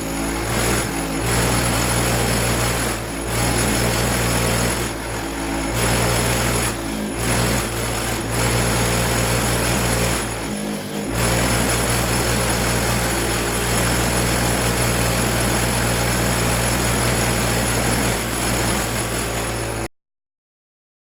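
Motor-driven wire wheel running steadily, with a constant hum, a high whine and a hiss, broken by a few brief dips, then cutting off abruptly near the end.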